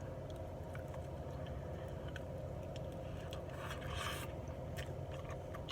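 A person biting and chewing a crispy chicken wing flat: scattered small mouth clicks and a brief scraping crunch about four seconds in, over a steady low hum.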